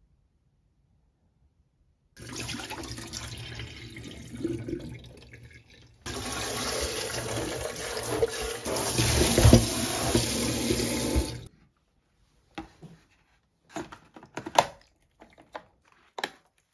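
Dirty water poured out of a wet-dry vacuum's dirty-water tank into a stainless steel kitchen sink, with water splashing as the tank is emptied and rinsed. It starts about two seconds in, grows louder at about six seconds and stops suddenly near twelve seconds. A few short, light clicks and knocks follow.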